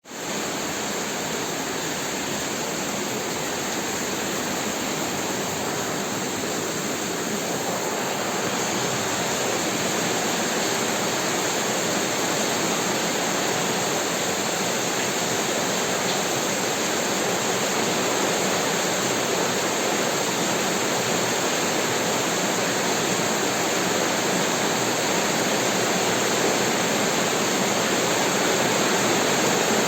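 Heavy rain falling steadily, an even rushing hiss that grows slowly louder; no thunder.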